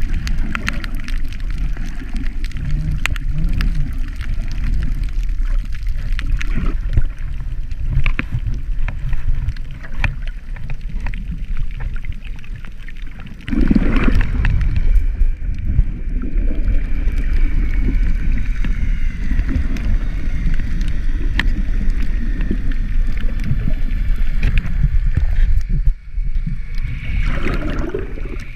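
Underwater sound picked up by a snorkeler's action camera: steady low rumbling water noise with scattered crackling clicks. About halfway through it gets suddenly louder, and a faint, slightly wavering high tone runs under it from then on.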